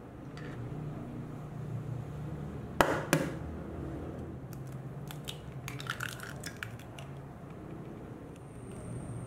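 An egg being cracked: two sharp taps of the shell against a hard edge about three seconds in, followed over the next few seconds by a scatter of lighter clicks.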